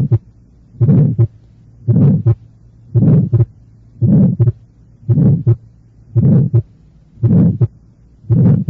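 Recorded heart sounds at a regular rate of a little under one beat a second. Each beat has a systolic murmur after the first heart sound that ends before a short, separate second heart sound. This is an innocent pulmonary flow murmur, medium-pitched and harsh, early-to-mid systolic, as heard in many normal children.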